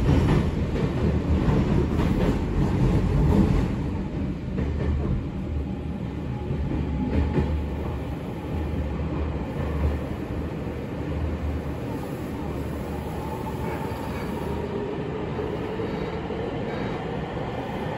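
Running noise inside a Nagoya Municipal Subway N3000-series car in motion: a steady low rumble of wheels on rails and traction equipment. It is louder for the first few seconds, then settles quieter.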